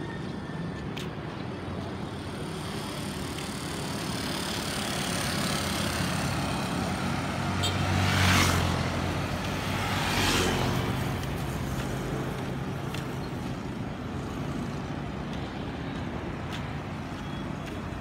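Street traffic with two close pass-bys: a vehicle with a strong low engine hum goes by about eight seconds in, then a motor scooter passes about two seconds later, each rising and fading away.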